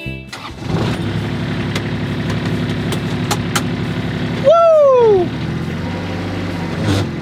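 Engine of a tracked utility vehicle starting up about half a second in and then idling steadily, heard from inside the cab. Past the middle, a loud pitched tone slides downward for under a second over the engine.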